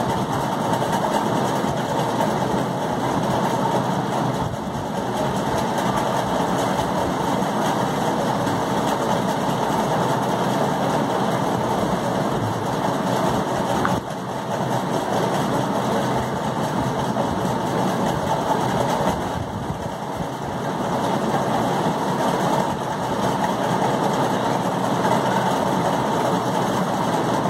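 Steady mechanical drone, unbroken, with its level dipping briefly a few times.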